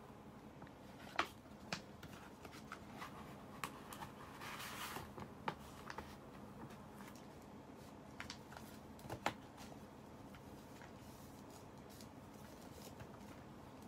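Paper handling: a mailed envelope and folded letter papers being taken out and turned over by hand, with a short rustle about four to five seconds in and a handful of sharp taps and clicks of paper and fingers.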